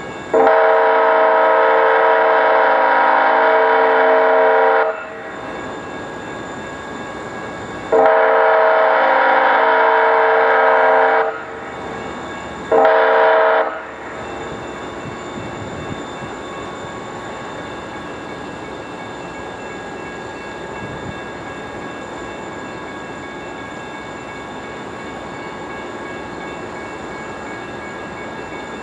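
A DCTA A-Train commuter-rail horn sounded for a grade crossing: two long blasts of about four and three seconds, then a short one about a second long. After the horn stops, the train's steady running hum carries on with faint tones.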